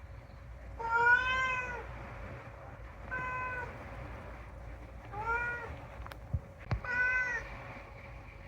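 Domestic cat meowing four times, about two seconds apart, each call rising and falling slightly in pitch; the first is the loudest and longest. A couple of sharp clicks come between the third and fourth meows.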